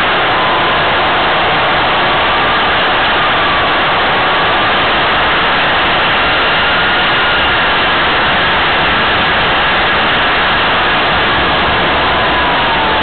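Model aircraft's jet turbine running close to the onboard camera's microphone: a loud steady rush with a thin whine that drifts slowly up and down in pitch.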